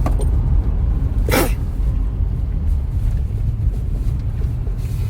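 A woman sneezes once, a single sharp burst about a second and a half in, over a steady low rumble.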